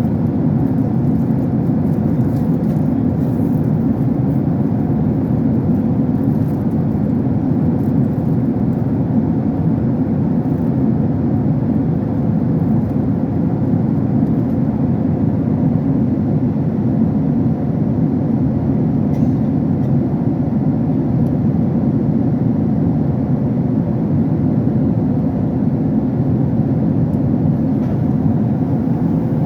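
Steady engine and airflow noise of an airliner in flight, heard inside the passenger cabin.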